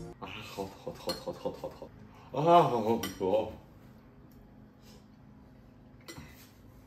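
A metal fork clinking and scraping against a ceramic bowl while pasta is eaten. About two and a half seconds in, a man gives a drawn-out, wavering "mmm" of enjoyment with his mouth full.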